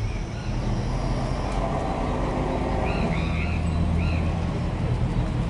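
Low, steady engine hum of street traffic, with a few short bird chirps about three seconds in.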